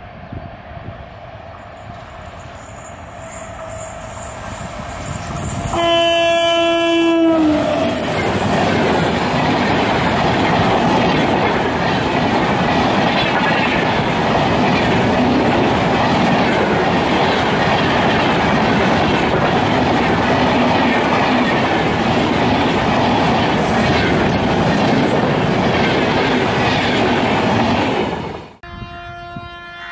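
WAP-7 electric locomotive approaching with rising rail noise, then sounding its horn once for about a second and a half as it nears. Its passenger coaches then pass close by for about twenty seconds with a loud steady rumble of wheels on rail and clickety-clack. The sound cuts off abruptly near the end, and another train horn starts.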